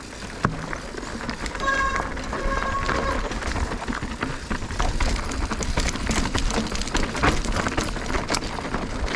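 Clicking, scraping and rustling of mountain bikes and riders moving over rocky trail, with wind rumbling on the microphone. A short steady tone sounds twice about two seconds in.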